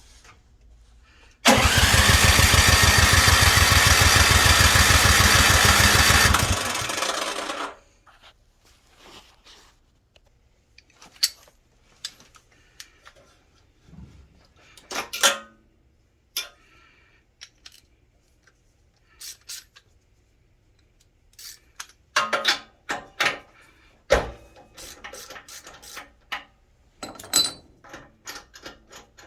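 Snowblower engine, after sitting all summer, turning over loudly for about five seconds, then spinning down and stopping. Scattered clicks and knocks follow.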